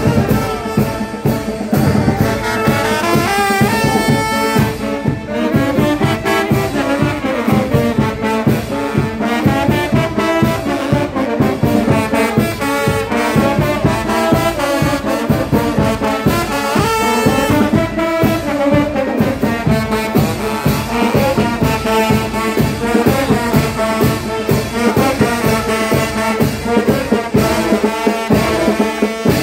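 Brass band playing, trumpets and trombones carrying a melody over a steady beat.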